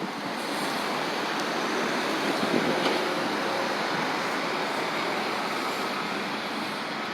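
Steady traffic noise from buses and other vehicles running, an even rushing sound with a faint whine in it.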